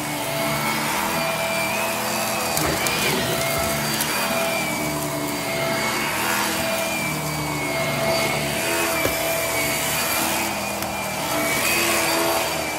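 Hart vacuum cleaner running steadily while pushed back and forth over carpet. Its motor whine wavers slightly in pitch as the load changes.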